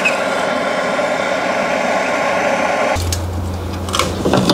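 Bernzomatic trigger-start propane torch burning with a steady hiss while heating a soldered copper pipe joint; it cuts off suddenly about three seconds in. A low hum and a few sharp clicks follow.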